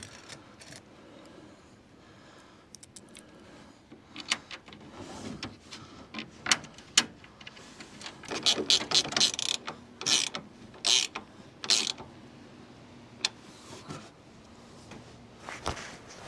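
Small metal hardware clinking as it is picked from and set back in a shallow metal dish, with taps of a plywood board being shifted on an aluminum boat seat. A run of sharper clicks comes about eight to twelve seconds in.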